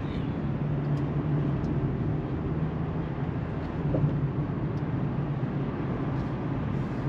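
Car driving along, heard from inside the cabin: steady engine and tyre noise with a low drone.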